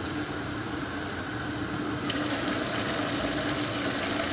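A pot of rice and masala water at a hard boil on an electric hob, a steady hiss with a constant low hum under it. About two seconds in the bubbling hiss gets louder and fuller.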